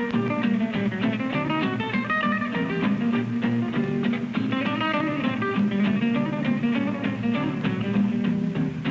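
Background music led by a plucked guitar, with a quick run of changing notes over a steady low line.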